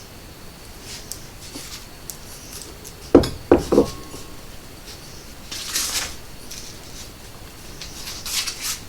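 Kitchen bowl and utensil clatter: three quick knocks a little over three seconds in, one leaving a short ring, with scraping and rustling later as seasoned flour is worked over a battered onion.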